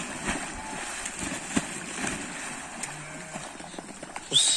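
Water splashing and churning as sheep jump off the bank into a pond and swim across. Near the end a short, loud, high whistle sounds, falling away as it stops.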